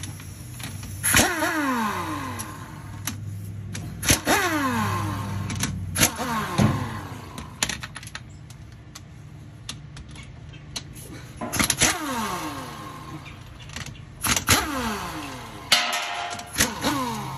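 Impact wrench spinning out the bolts of a GM 10-bolt differential cover in short bursts a few seconds apart, each burst ending with the motor winding down in pitch.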